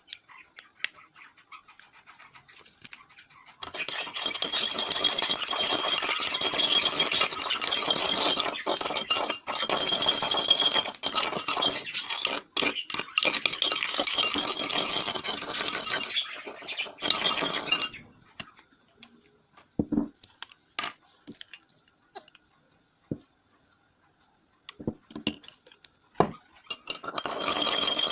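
Slime ingredients (glue, water and soap with borax solution) being stirred in a container with a utensil: a steady scraping swish starts a few seconds in and stops about halfway, comes back briefly, then gives way to scattered clinks and taps before the stirring resumes near the end.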